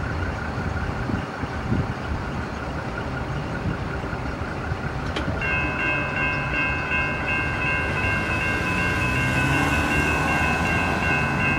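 Railroad crossing's electronic bells (a Siemens electronic bell and a General Signals Type 3) start ringing about halfway through, in a steady rapid ding, as the gate arms rise once the train has cleared. Under it runs the low rumble of a departing light-rail train and traffic.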